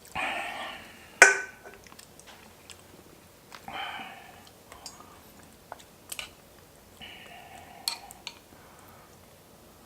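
Close-miked eating sounds of someone eating pork-bone soup: chewing, with three short noisy bursts of slurping or sniffing and a few sharp clicks, the loudest about a second in.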